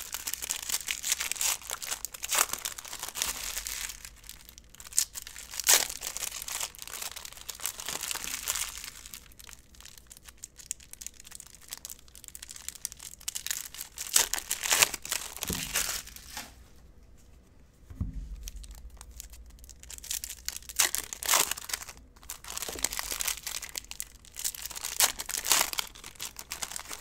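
Hockey card packs being handled and torn open: wrappers crinkling and tearing, and cards rustling, in irregular bursts with a short lull a little past the middle.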